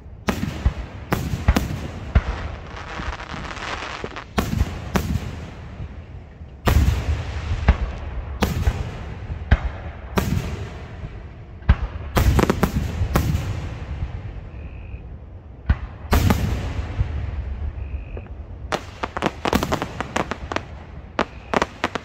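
Aerial fireworks shells bursting one after another, each bang trailing off in a long rumbling echo. Near the end comes a rapid string of crackling reports.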